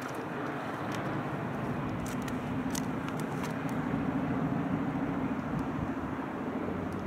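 Junkers Ju 52's three radial piston engines droning low, swelling to a peak about four to five seconds in and then easing off as the aircraft passes on its landing.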